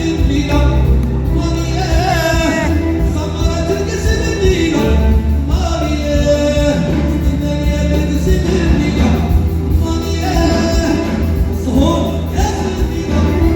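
Live Hassani (Sahrawi Moroccan) music: singing with gliding melodic lines over a steady beat and heavy bass.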